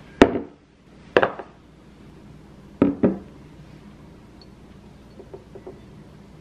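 A glass jar of coconut oil set down on a kitchen countertop with a sharp knock, followed by more knocks, a close pair near three seconds in, as a metal spoon scoops solid coconut oil into a small glass dish; only faint light ticks near the end.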